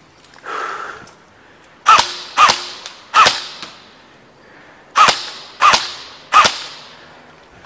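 Airsoft gun fired six times as single shots, in two quick groups of three, each shot a sharp crack with a short metallic ring.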